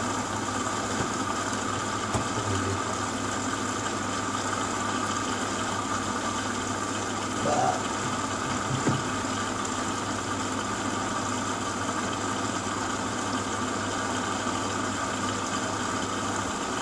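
Hoover WDYNS654D washer dryer running steadily at the start of its wash cycle, a constant hum with hiss that cuts off suddenly near the end.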